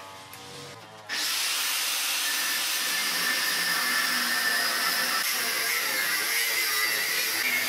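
Angle grinder with a 1.2 mm Ataman abrasive cut-off disc cutting through steel strip. It starts abruptly about a second in and then runs steadily under load.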